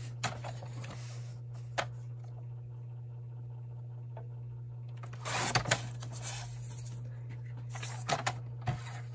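Paper handled on a Fiskars sliding paper trimmer: the sheet slid and repositioned, a few light clicks, and a short rasping stroke about five seconds in, over a steady low hum.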